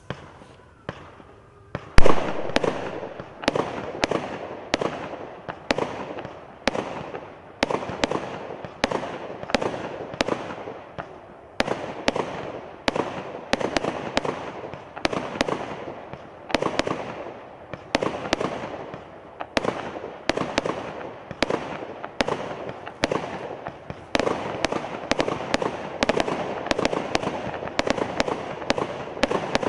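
"Intensity" multi-shot firework cake firing a long volley of sharp shots, about one to two a second, with a continuous fizz of burning sparks between them. The loudest shot comes about two seconds in, and the shots come faster near the end.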